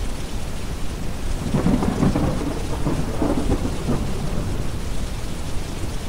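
A roll of thunder swells in about a second and a half in and dies away after about four seconds. Beneath it runs steady rain over a bed of deep brown noise.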